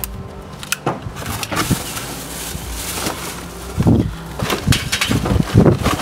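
Plastic bag and cardboard box rustling as charcoal briquettes are handled, then irregular clattering as the briquettes tip into a metal Weber kettle grill in the second half.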